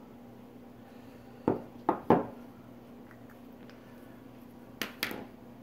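Small hard objects set down and handled on a wooden tabletop: three sharp knocks about a second and a half in, then two more near the end.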